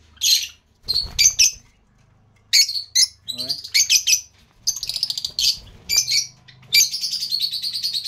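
Rosy-faced lovebirds calling: many short, high, shrill chirps, with a longer rapid chattering run near the end.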